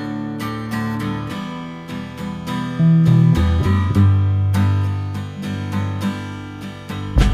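Music: strummed acoustic guitar over steady low notes, getting louder about three seconds in.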